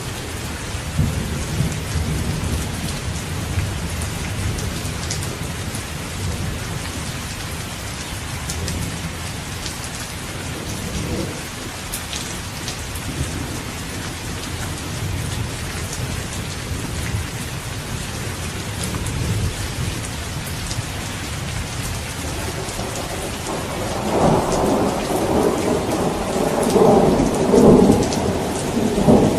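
Steady rain falling, with low thunder rumbling in the first half and a louder roll of thunder building in the last few seconds.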